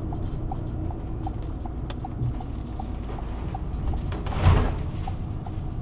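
Turn signal clicking steadily, about three ticks a second, over the low rumble of a Volvo truck's engine heard from inside the cab as it turns in. A brief rushing noise sounds about four and a half seconds in.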